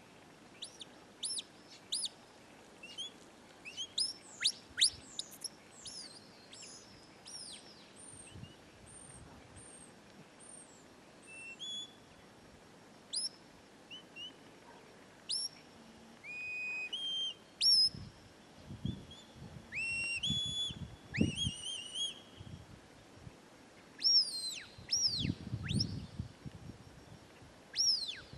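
Shepherd's whistle commands to a working sheepdog: many short, high notes, some falling sharply in pitch, others held and stepping up, given again and again.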